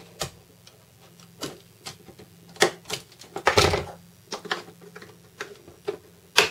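Scattered small clicks, taps and scrapes of hands working on a hard plastic case: a utility knife trimming a switch hole, a longer scrape about halfway through, then a sharp click near the end as a rocker switch is pressed into the hole.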